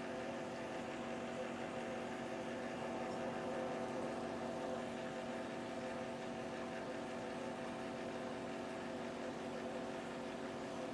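Aquarium pump running with a steady hum made of several pitches, under a faint even hiss of moving water.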